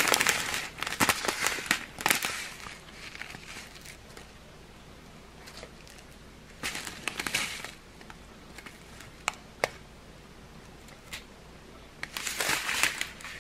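Small clear plastic zip bags of round diamond-painting drills crinkling as they are handled, in three bursts: at the start, in the middle and near the end. A few single sharp ticks fall between the bursts.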